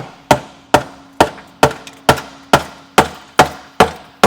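Heavy hammer striking the blown engine of a Ram TRX in steady, even blows, about two a second, with a faint metallic ring carrying between hits.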